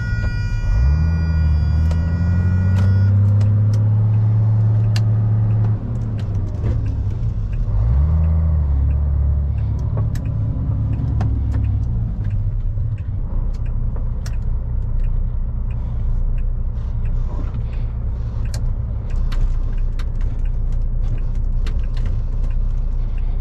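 2001 MAN lorry's diesel engine pulling through the gears: it revs up, drops sharply about six seconds in as a gear is changed, then climbs again and settles to a steady run. Frequent sharp clicks and rattles sound over it.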